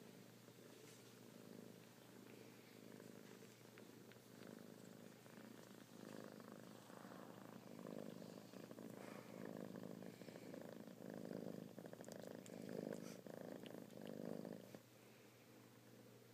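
Domestic cat purring, a low, rhythmic purr that swells with each breath, growing louder after about six seconds and cutting off suddenly near the end.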